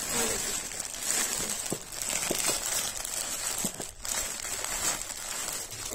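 Plastic pouches holding necklaces rustling and crinkling as hands shuffle and sort them, with many small crackles and a brief lull about four seconds in.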